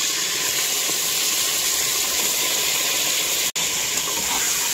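Raw mutton pieces frying in hot oil in an aluminium pressure cooker, a steady loud sizzle. It breaks off for an instant about three and a half seconds in.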